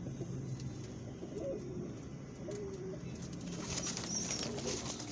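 Domestic pigeons cooing, low wavering coos coming every second or so. From a bit past halfway, rustling and soft clicks of handling join in.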